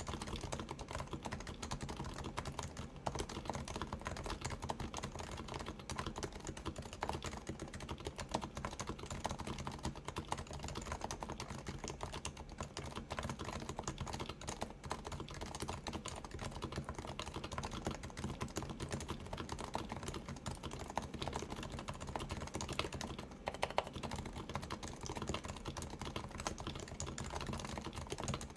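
Continuous typing on a Keyhub Design RF-8X keyboard with 45 g Topre switches, silenced with purple Realforce sliders and silencing rings, under OEM Realforce keycaps: a dense, unbroken run of keystrokes, with a couple of louder strikes a little before the end.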